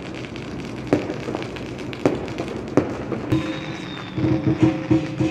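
Fireworks and firecrackers going off across a town, a continuous crackling with several sharp bangs. About four seconds in, a steady pitched tone with a pulsing beat joins the crackle.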